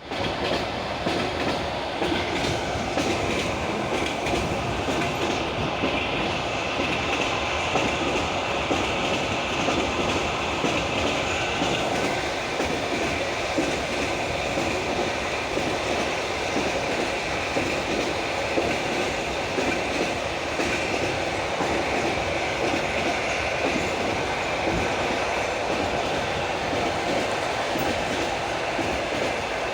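Railway carriage wheels running over jointed rail track, giving the rhythmic clickety-clack of the wheels crossing the rail joints over a steady rolling noise, heard from the window of a moving passenger car.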